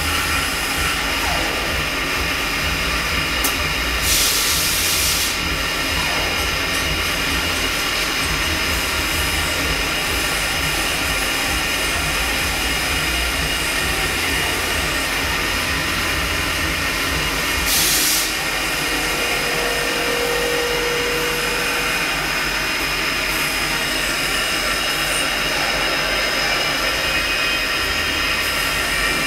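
Mori Seiki NL3000 CNC turning centre running a C-axis milling cut with a live-tool end mill: a steady machine hum with several high whining tones over a low rumble. A short burst of hiss comes about four seconds in, and another near eighteen seconds.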